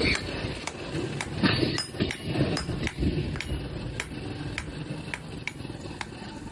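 Hammer blows on metal at an even pace, about three a second.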